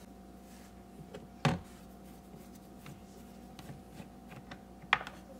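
Scattered light ticks and two sharp clicks, one about a second and a half in and one near the end, from hands working the plastic lower dash panel of a Toyota JZX90 loose, over a faint steady hum.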